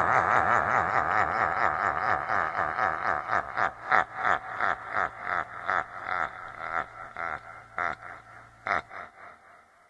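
A spooky, evil laugh in repeated 'ha' pulses, about three a second, slowing and fading away until it dies out about nine seconds in.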